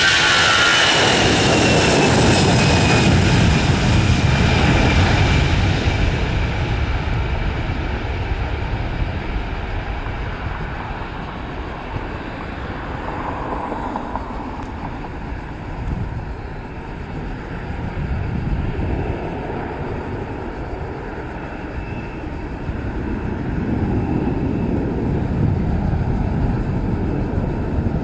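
Airbus A320-family airliner's CFM56 jet engines at takeoff thrust: a loud roar with a whine that falls in pitch over the first few seconds as it goes past, then the roar slowly fading as the aircraft climbs away.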